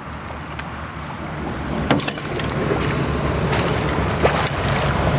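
A hooked jack Chinook salmon splashing and churning the water as it is drawn in to the bank, the splashing growing louder from about two seconds in with a few sharp splashes.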